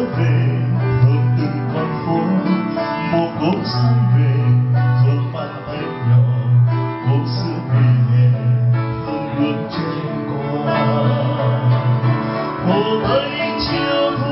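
Acoustic guitar playing a slow ballad live over sustained low bass notes, with a singing voice coming in at times.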